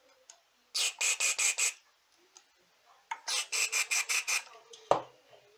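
Aerosol contact cleaner sprayed in rapid short spurts through its straw onto an amplifier's potentiometers to clean them of their scratchy noise: two quick series of about five or six hissing puffs, the second about three seconds in. A single sharp knock sounds just before the end.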